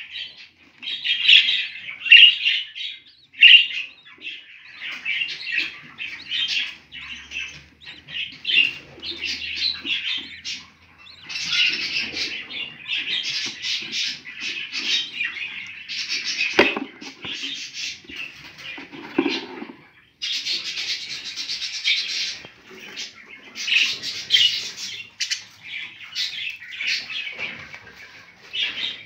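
Budgerigars chirping and cheeping in rapid, raspy runs of calls, with a single sharp knock about two-thirds of the way through.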